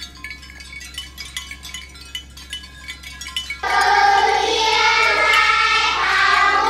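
Soft tinkling, chime-like background music, then about two-thirds of the way in a class of children starts reading an English lesson aloud together, much louder, their voices chanting in chorus.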